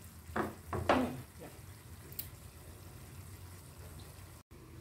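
Two short mouth sounds about half a second apart as a bite of the hot beef in balado sauce is tasted, the second one louder, over a faint steady background noise.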